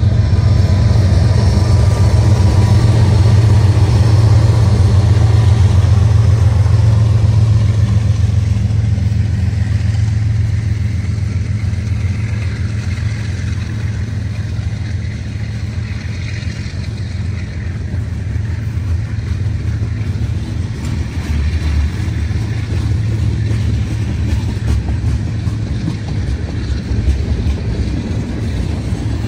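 Diesel locomotives of a CN manifest freight train passing close by: a steady, loud, low engine rumble, strongest over the first several seconds and easing off after.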